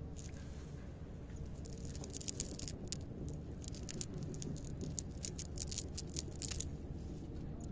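Wet fishing net clogged with water weeds being handled and shaken on the ground, giving a run of sharp crackling clicks and patters from about a second and a half in until near the end.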